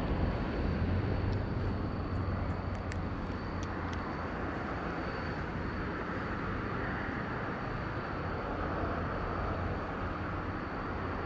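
Steady rumble of distant engine noise, with a low hum that is strongest in the first few seconds and then fades, a thin steady high tone, and a few faint clicks.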